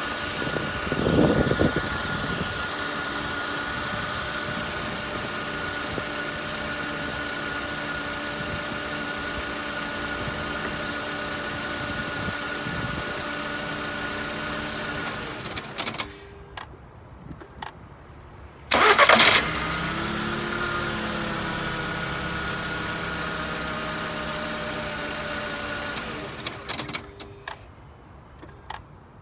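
Volkswagen Golf 6 1.6 (BSE) four-cylinder petrol engine with a seven-speed DSG is started, idles steadily and is switched off; it is started again about two-thirds of the way through and switched off again near the end. Each shutdown comes with a short run of clicks and knocks, the extraneous noise on switching off that the owner is asking about.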